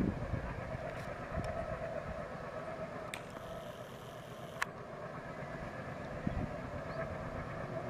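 Passenger train running away down the track, a steady rumble of wheels on rail, with a brief hiss about three seconds in.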